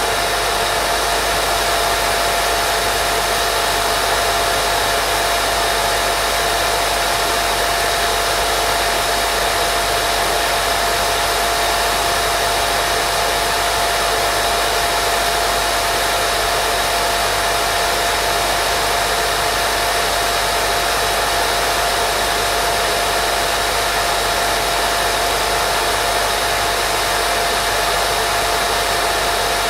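Steady, unchanging white noise for lulling a baby to sleep, with one steady tone running through it.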